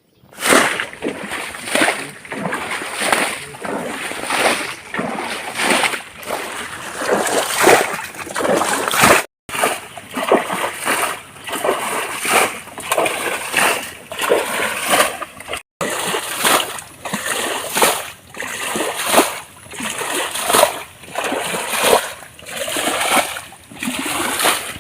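Pond water being bailed out, splashing in repeated surges roughly once a second, with two brief gaps.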